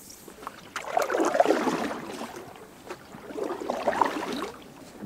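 Water sloshing and gurgling in two swells, about two and a half seconds apart.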